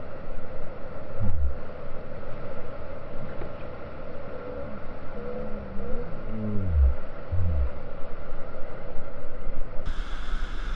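Steady rushing roar of whitewater in Elkhorn Rapid on the Main Salmon River, with a few low, falling groans about a second in and again between about five and seven and a half seconds in.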